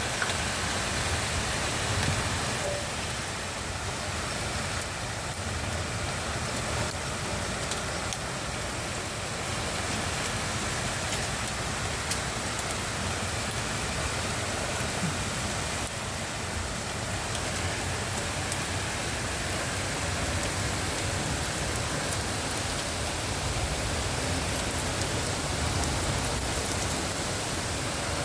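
Heavy rain pouring down in a hailstorm: a steady, dense hiss with occasional sharp ticks.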